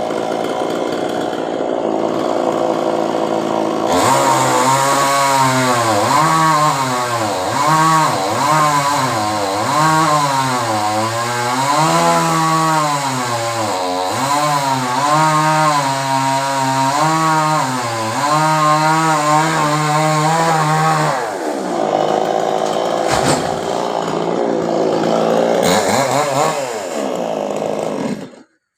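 Two-stroke chainsaw running loud, cutting into a coconut palm trunk. Its engine pitch rises and falls over and over as it bogs under the cut and picks up again. The engine stops abruptly near the end.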